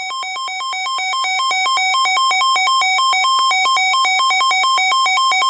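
Weather radio's alert alarm sounding for a severe thunderstorm warning: a loud electronic two-tone beeping that alternates rapidly between a lower and a higher pitch several times a second, growing louder over the first two seconds.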